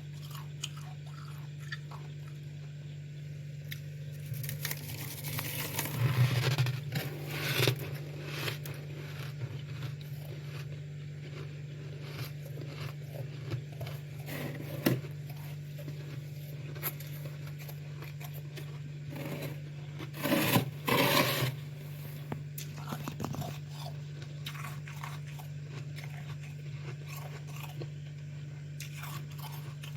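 Freezer frost being bitten and chewed close to the microphone: crisp crunching and scraping with small crackles throughout, and two louder bursts of crunching, one about five seconds in and one about twenty seconds in. A steady low hum runs underneath.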